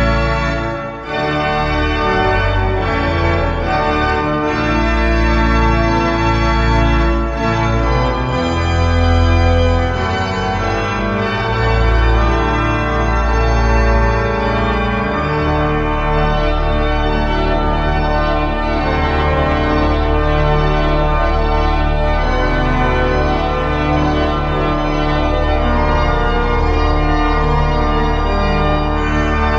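The 1885 Schuelke mechanical-action (tracker) pipe organ playing full chords over a deep pedal bass. From about halfway in, the chords are held over one long low pedal note.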